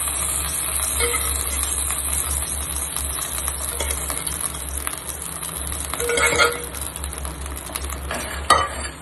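Boiled mutton pieces and their cooking water sizzling in a pan with fried shallots and garlic while a steel spoon stirs them. A short scrape of the spoon on the pan comes about six seconds in and a sharp knock near the end.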